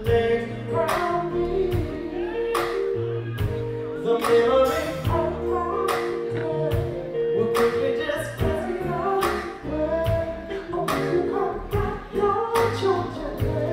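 Male R&B singer performing live with a band: sung lines with long held notes over a slow, steady drum beat.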